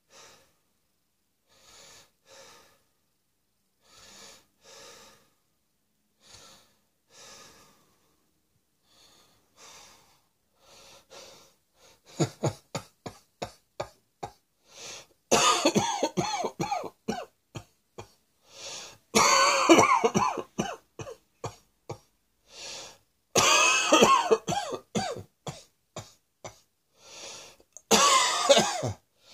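Coughing: faint short coughs at first, then from about halfway, rapid fits of coughs broken by long drawn-out sounds with a wavering pitch, growing louder.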